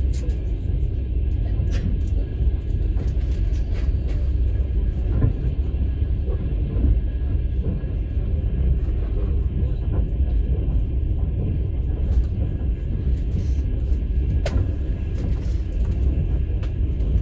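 Steady low rumble of a moving passenger train, heard from inside a platzkart sleeper carriage, with a few scattered faint clicks.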